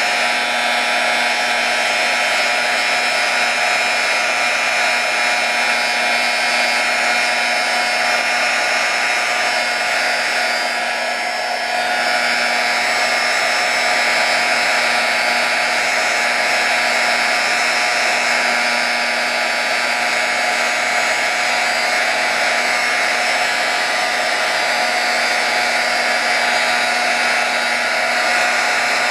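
Embossing heat gun blowing steadily, its motor whine and rush of hot air running without a break, with a slight dip in loudness about eleven seconds in. It is melting a coat of clear embossing enamel powder into a smooth glossy layer.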